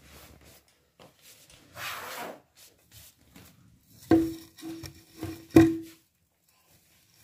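A tealight candle tray set down into an artificial pine wreath on a table: a rustle of plastic needles, then a few knocks on the tabletop with a short ringing tone. The two loudest knocks come about four and five and a half seconds in.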